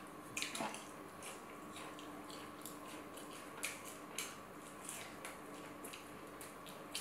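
Close-miked eating: a person biting and chewing through a meal of chicken wings suya, chips and salad, with irregular short crisp crunches and clicks. A faint steady hum sits underneath.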